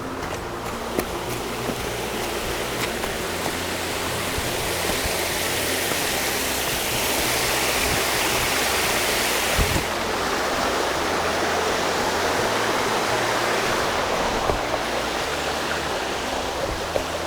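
Rushing water of a mountain stream, a steady noisy wash that grows brighter for a few seconds midway and drops back abruptly.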